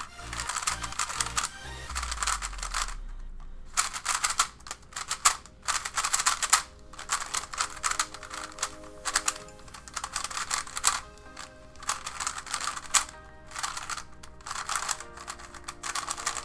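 MoYu MF3S budget 3x3 speedcube being turned fast by hand, its plastic layers clacking in rapid runs with short pauses between. Out of the box it is locking up and catching, and its corner cutting isn't great.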